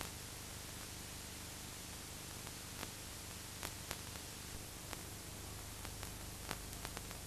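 Steady hiss with a faint low hum and a few scattered soft clicks: the noise of a blank stretch of VHS videotape between recordings.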